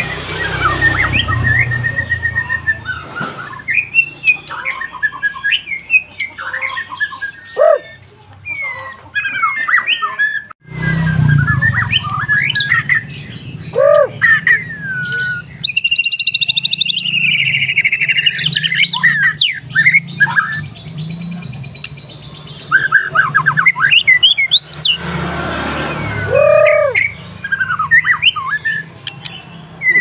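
A white-rumped shama (murai batu) singing a long, varied song of loud whistles, sliding notes and chattering phrases, with a fast rattling trill about halfway through.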